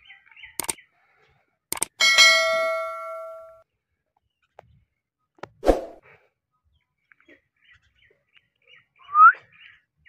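A click and then a metallic, bell-like ding about two seconds in that rings and fades over about a second and a half; a sharp knock a few seconds later. Near the end, a short rising chirp from an Indian ringneck parakeet.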